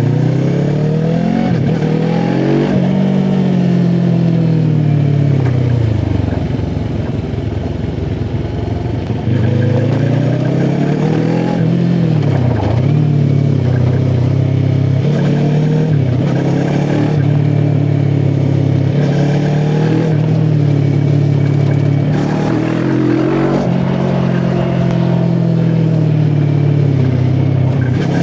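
QJ SRT 450 RX motorcycle engine and exhaust under way, revving up and falling back repeatedly as the rider accelerates and shifts through the gears. There is a slower, quieter spell near the first third, then the revs climb again.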